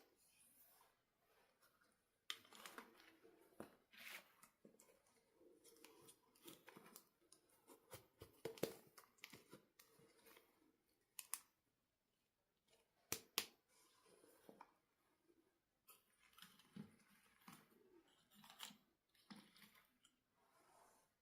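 Scissors snipping, with faint rustling and scattered clicks of small objects being handled; a sharp double click about 13 seconds in.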